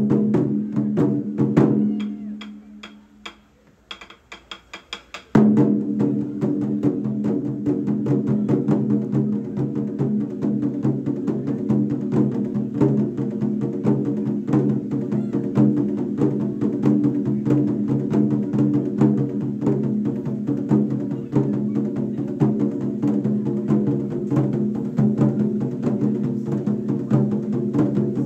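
Japanese taiko ensemble drumming rapidly on large barrel-shaped taiko drums with wooden sticks. The drumming drops away about two seconds in, leaving a few sharp clicks. It comes back in full at about five seconds and continues as a dense, driving rhythm.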